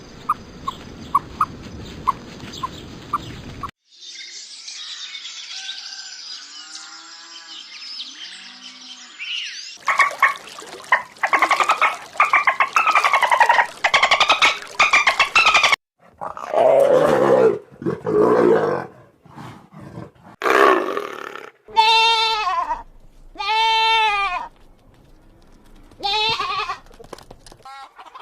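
A run of different animal calls, one clip after another: a rapid train of clicks, then quieter gliding calls, a fast chattering stretch, a few low drawn-out calls, and near the end several bleat-like calls with a clear pitch.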